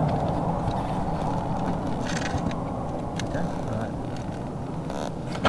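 A vehicle's engine and road noise slowly fading away, with a few light clicks.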